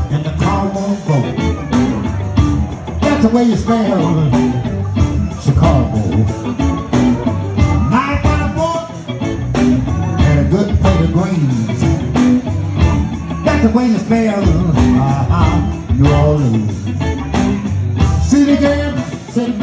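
Live blues band playing: electric bass, drum kit and keyboards keep a steady beat while a man sings into a handheld microphone over them.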